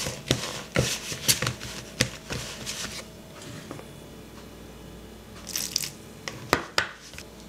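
Metal fork stirring and scraping crumbly spelt-flour and coconut-oil pie-crust dough in a plastic mixing bowl: a run of quick scrapes and clicks, a quieter stretch in the middle, then a few more sharp clicks near the end.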